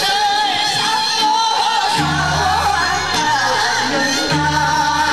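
Korean folk song (minyo) sung by a group of performers into a microphone, with musical accompaniment and a bass line that drops in and out.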